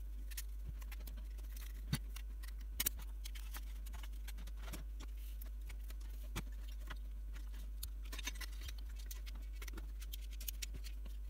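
Scattered small clicks and ticks of a hand screwdriver, screws and a rear panel being handled during assembly, with a few sharper clicks about two and three seconds in, over a steady low hum.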